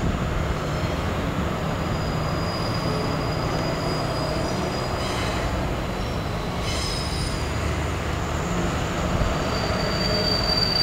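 Freight train of double-deck car-carrier wagons rolling slowly past, a steady rumble of wheels on rail with a thin, high-pitched wheel squeal that comes and goes, loudest near the end.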